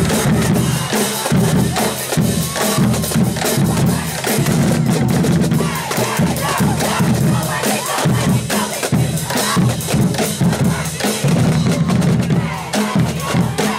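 High school marching band playing the tuba dance feature: tubas blowing a loud, low riff in repeated phrases over the drumline's rapid snare and bass drum beat.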